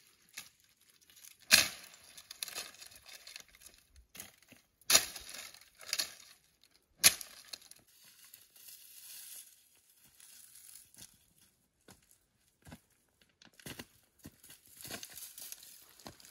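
Dry branches snapping, with four sharp cracks in the first seven seconds, and dry brush rustling and crackling between them and again near the end.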